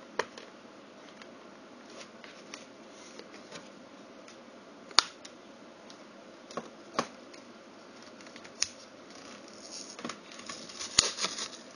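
Thin card packaging being pried and pulled apart by hand: scattered crackles and sharp clicks of the card flexing and tearing, busier near the end.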